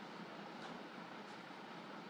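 Faint steady background hiss of the narration recording, with no distinct sound.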